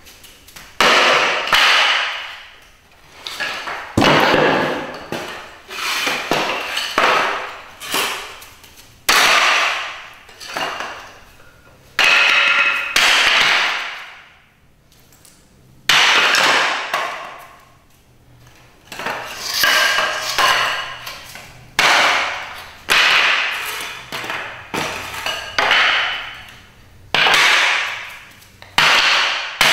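Hatchet chopping at a wooden chair frame: repeated sharp blows about a second apart, each ringing briefly and dying away, with a short pause about halfway through.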